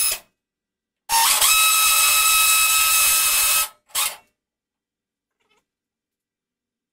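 Cordless drill boring a hole into aluminium: it spins up briefly at the start, then runs steadily for about two and a half seconds, with one short final burst about four seconds in.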